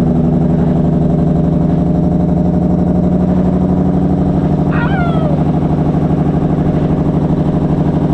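Diesel engine of a Peterbilt semi-truck running steadily with a fast, even throb. A short falling chirp comes about five seconds in.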